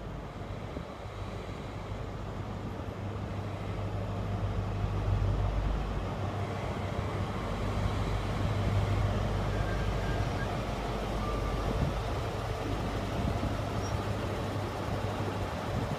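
Diesel engine of an HST Class 43 power car, an MTU V16, running with a steady low hum as the train draws into the platform and comes up close. It grows louder about four seconds in and stays loud.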